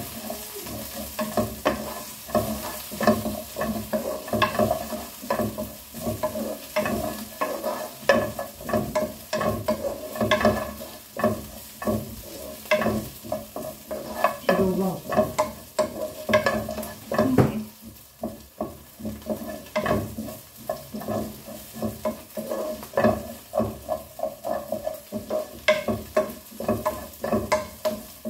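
Spatula stirring food in a stone-coated frying pan over a gas flame: irregular scrapes and light knocks against the pan over a steady frying sizzle.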